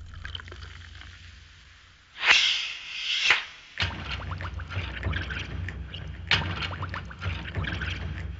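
Liquid being poured and splashing into a vessel, loudest in two spurts about two and three seconds in, then a steady low hum with more splashing from about halfway.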